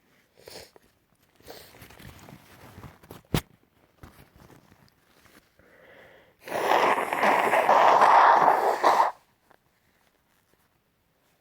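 A person sneezing: a soft catching breath, then a loud, rough nasal blast about six and a half seconds in that lasts a couple of seconds. A single sharp click comes earlier, with faint rustling.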